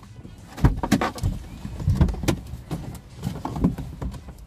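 Irregular knocks, thumps and rustling inside a van's cabin as people climb out of the front seats.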